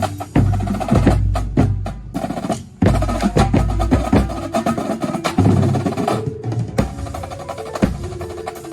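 Drum corps percussion section playing: marching drums in dense, rapid strokes, with held pitched mallet notes coming in a little past halfway as the drumming thins out.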